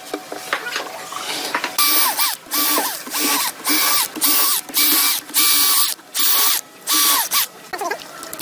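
A handheld power tool's motor triggered in a string of about eight short bursts, each whine dropping in pitch as it cuts off.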